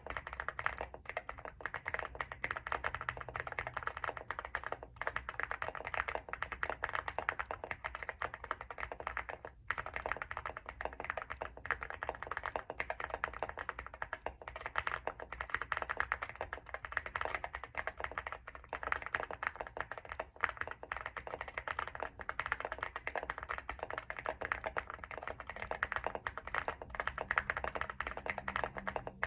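Continuous fast typing on a Leobog Hi75 mechanical keyboard with stock WS Morandi linear switches, all stock foams and PBT MDA keycaps: a dense run of muted keystroke clacks, broken by brief pauses about five and nine and a half seconds in.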